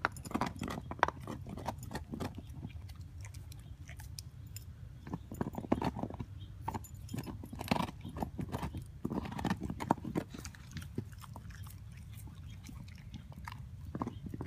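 Pit bull chewing and gnawing on a piece of food: irregular wet crunches and mouth clicks, coming in clusters.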